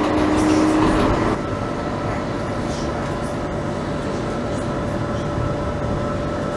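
CAF Urbos 3 tram in motion heard from inside: steady running noise with a steady electric hum from the drive. The sound changes abruptly about a second in, dropping to a quieter, even drone as the tram rolls slowly.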